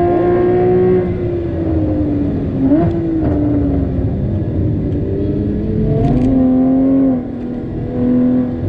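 Porsche Cayman GTS 981's flat-six engine under way: it pulls and then lifts off with the pitch falling, gives a short throttle blip about three seconds in, then picks up again around six seconds and eases off near the end.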